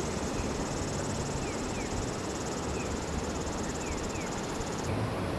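A high, fast-pulsing insect trill over a steady low background rumble; the trill stops abruptly near the end, and a few faint short falling chirps come through.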